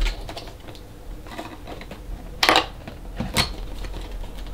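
A cardboard camera box being opened and handled: a scatter of light scrapes and clicks, with the loudest sharp click about two and a half seconds in and another about a second later.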